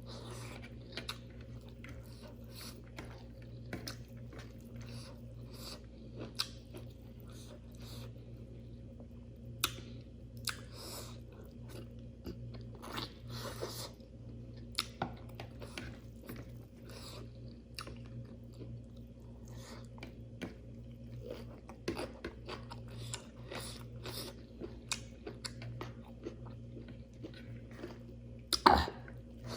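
Close-miked eating sounds: chewing and crunching of a rice-and-curry meal, with small mouth clicks throughout. One sharp, louder click comes near the end.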